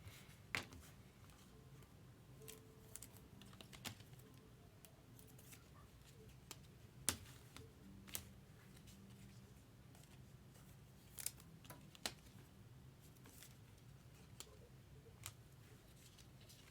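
Near silence with faint, sharp clicks and taps at irregular intervals, about a dozen in all.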